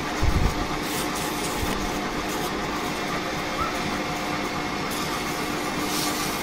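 Smart & Brown toolroom lathe running steadily with its spindle turning, with a low thump shortly after the start.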